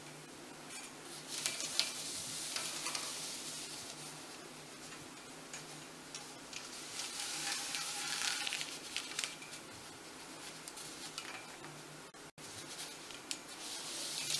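Warp thread rustling as it is pulled off a cone and wound round and round the loom's top bar, in several soft bursts of a few seconds each.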